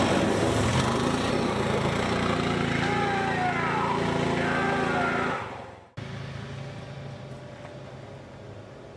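Four-wheeler (ATV) engine running steadily, fading away about five seconds in. After a sudden cut, a quieter steady low hum is left.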